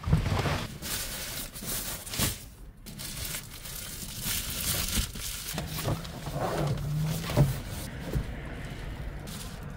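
Reflective foil insulation window covers crinkling and rustling as they are handled and pressed into a car's windows, with a few soft knocks and bumps.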